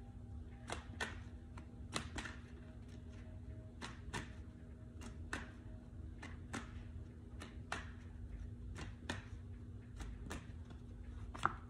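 Tarot cards being shuffled by hand: a string of soft, irregular clicks and slaps, roughly one or two a second.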